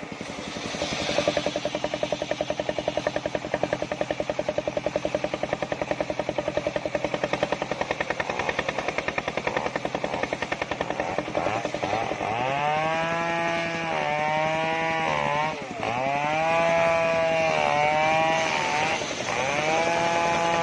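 Homemade circular-saw rig ripping a large sengon log. The machine runs steadily at first, then from about twelve seconds in the blade's whine rises and sags again and again as the saw takes load in the cut.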